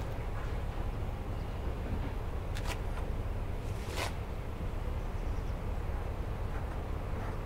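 Steady low rumble of outdoor background noise, with two short sharp knocks, the second about half way through.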